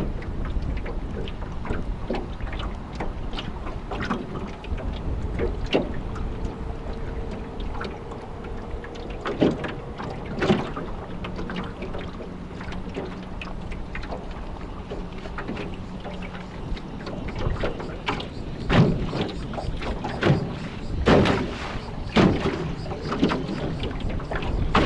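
Choppy, wind-driven water slapping irregularly against a small fishing boat, with wind rumbling on the microphone.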